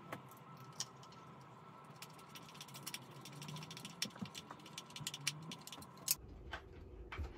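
Hand screwdriver driving a pan-head screw into a wooden loom side piece, a run of quick small clicks and ticks from about two seconds in until about six seconds, after a single knock early on.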